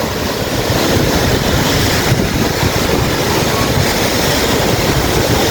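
Steady rush of wind on the microphone, mixed with surf breaking on the beach.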